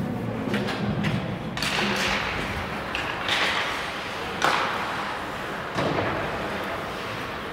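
Ice hockey play around a faceoff: several sharp knocks and thuds of sticks and puck on the ice, the loudest about four and a half seconds in.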